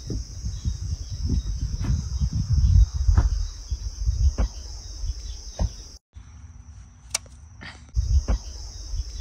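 Crickets or similar insects singing steadily in the grass, with wind rumbling on the microphone and a few sharp clicks about a second apart. About two-thirds of the way through, the insect sound cuts out for about two seconds, leaving one sharp click, then comes back.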